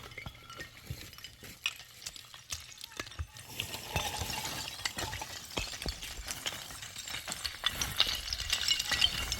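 Stones clicking, knocking and crunching on rocky ground, a scatter of sharp clicks that thickens into steady clattering about three seconds in.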